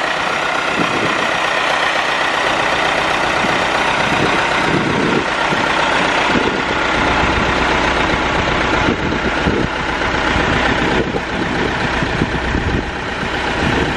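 Engine of a boatyard travel lift idling steadily.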